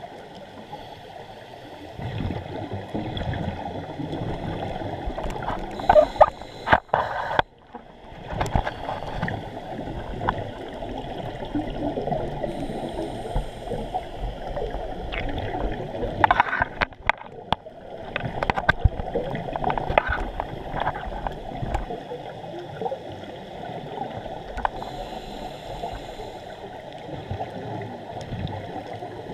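Scuba regulator exhaust bubbles rumbling and gurgling underwater in spells of a few seconds, one per breath, dropping out briefly twice. A few sharp clicks or knocks about six seconds in and again at about sixteen seconds.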